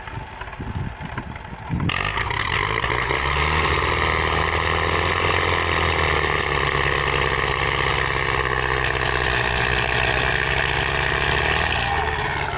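Belarus diesel tractor engines run at full throttle under heavy load, straining to pull a badly stuck, loaded trolley; the engine noise jumps up sharply about two seconds in, holds steady at high revs, and eases off near the end.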